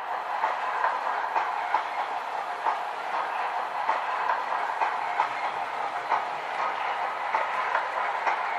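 Train running along the track: a steady rushing noise with many quick, irregular clicks of wheels passing over rail joints.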